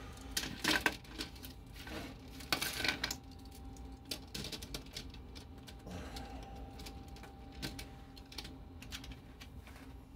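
Plastic Lego bricks clicking and rattling against a metal baking tray as they are picked through and handled; scattered sharp clicks, busiest in the first three seconds, thinning out after.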